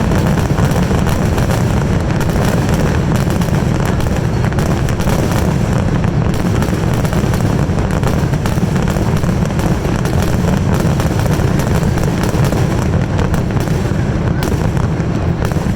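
Fireworks finale barrage: a loud, continuous rumble of overlapping shell bursts with no let-up, heaviest in deep booms.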